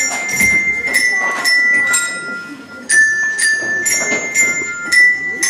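Bells of several pitches struck in turn, about two strikes a second, each note ringing on clearly over the next. There is a short lull a little past halfway before the strikes resume.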